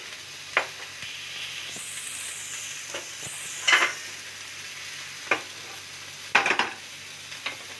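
Chicken and pineapple skewers and oil frying in hot pans: a steady low sizzle, with a brighter hiss for about a second and a half near the middle. A few sharp clicks and knocks of cookware come at irregular moments.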